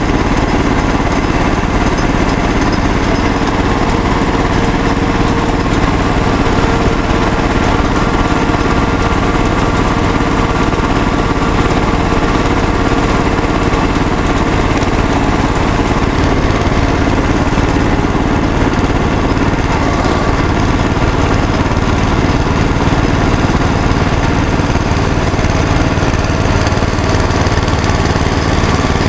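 Wheel Horse garden tractor's small engine running steadily at close range, a loud constant drone with fast low firing pulses.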